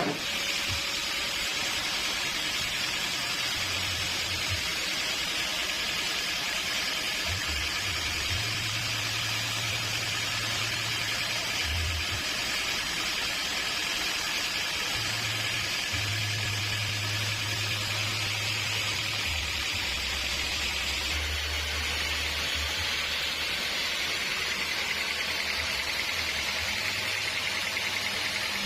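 Sawmill machinery running with a steady, hissing noise and a low hum that comes and goes.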